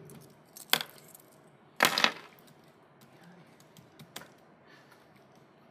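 Laptop keyboard being typed on in short, irregular spells of keystrokes, with a few sharper knocks, the loudest about two seconds in, and fainter key clicks later on.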